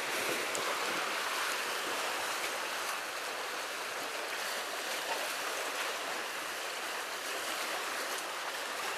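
Sea surf washing and sloshing among the concrete tetrapods of a breakwater, a steady rushing hiss.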